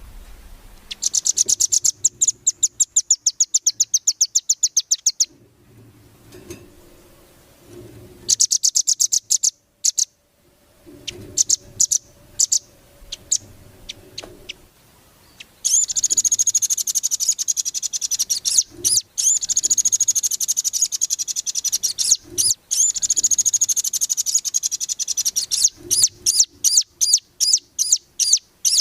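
Velvet-fronted nuthatch (rambatan) song: rapid, high-pitched trills of repeated notes in bursts of a few seconds, with a long trill of about ten seconds in the middle, breaking into separate chips near the end.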